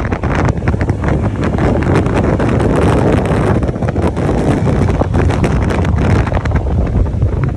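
Wind buffeting the microphone of a motorcycle moving at road speed, a loud, uneven rumble over the motorcycle's running and road noise.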